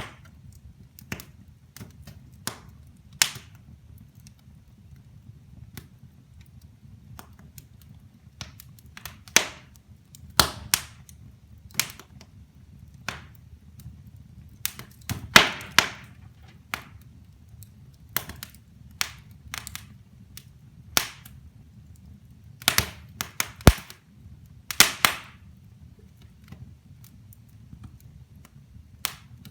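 Wood fire burning in a fireplace: logs crackling with irregular sharp pops, several of them loud, over a low steady rumble.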